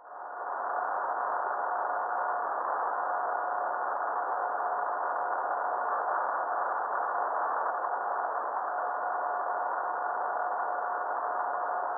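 Steady hiss with a constant mid-pitched tone running through it: the audio output of a handheld electromagnetic and ultrasound detector.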